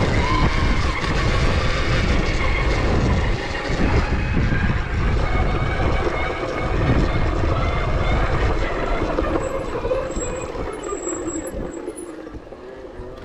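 Riding noise from a bike on a dirt trail: wind on the microphone and tyres over the ground, dying down near the end as the bike slows to a stop.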